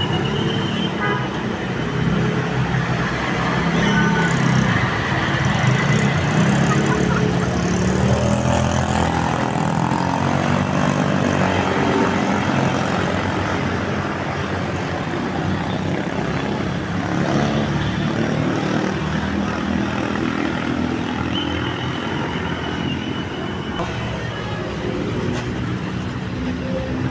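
Bus engine and road noise at a steady level, with the notes of a Basuri V3 telolet musical air horn sounding at times.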